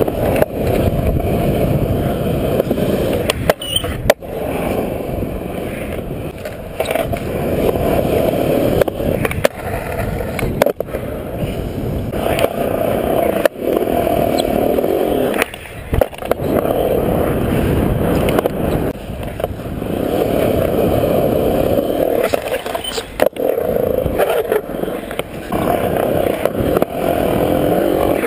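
Skateboard wheels rolling over concrete, a steady rumble that swells and eases as the board speeds up and slows. About five sharp clacks of the board break it.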